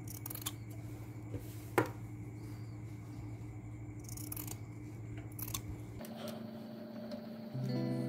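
Fabric scissors snipping through cloth: a few short, sharp snips as the corners of a sewn seam are trimmed, with one louder snip about two seconds in.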